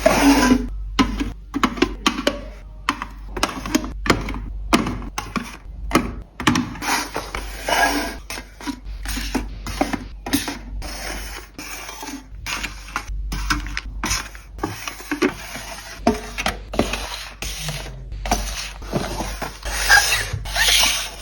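Small nail tools and their plastic packaging being handled and put away: a busy run of clicks, taps, rubs and scrapes, broken by many brief silences.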